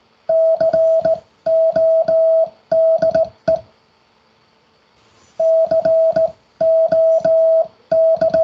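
Morse code sidetone, a single steady beep of about 650 Hz, hand-sent on a straight key with a click at each keying. The dits and dahs spell the word C-O-D-E, and after a pause of about two seconds the word starts again.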